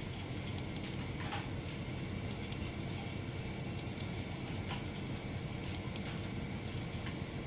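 Steady low background room noise with scattered faint clicks.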